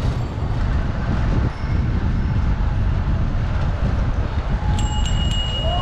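Wind buffeting a helmet-mounted camera's microphone as a bicycle is ridden fast through city streets. Near the end a bell rings, struck about three times in quick succession.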